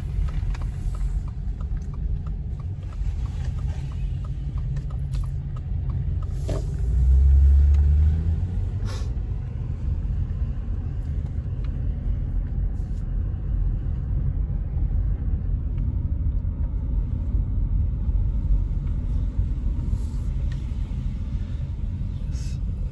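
Steady low rumble of a car driving on a paved road, heard from inside the cabin. About seven seconds in, a deeper, louder rumble lasts for a second and a half, and a few faint clicks are scattered through.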